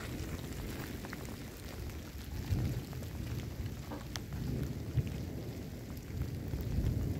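Wind buffeting the microphone: an uneven, gusting low rumble, with a few light ticks about four to five seconds in.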